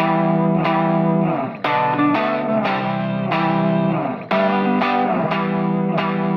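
Background music: guitar chords struck in a steady rhythm.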